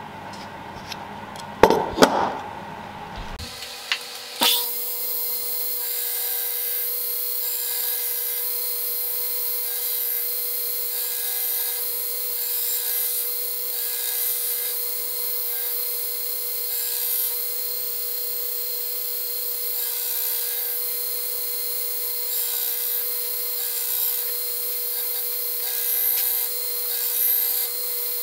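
A couple of sharp knocks, then about four seconds in a belt grinder's steady whine begins as a steel knife blade, cut from a truck leaf spring, is held against the running belt. The grinding hiss swells and eases every second or two as the blade is passed across the belt.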